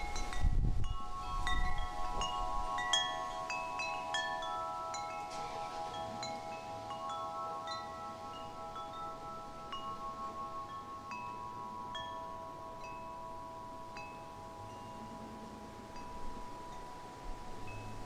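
Wind chimes ringing: several notes held and overlapping, struck at irregular moments, with short higher pings that grow sparser as the sound slowly fades.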